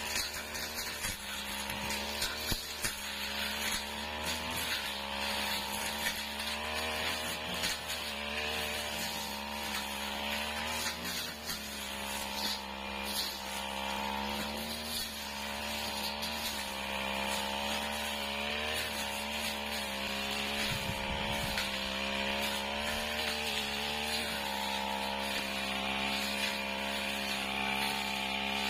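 Backpack brush cutter's small petrol engine running steadily at high speed, its pitch dipping slightly and recovering as the metal blade cuts through grass and ferns.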